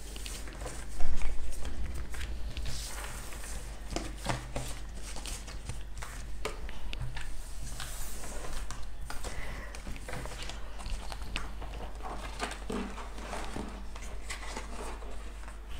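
Tarot and oracle cards being gathered up and slid together on a table: a light rustle of card stock with scattered, irregular taps and clicks. There is one louder knock about a second in.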